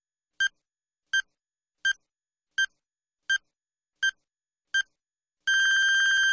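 Countdown timer sound effect: seven short, identical high electronic beeps, a little under one a second, then one long steady beep near the end.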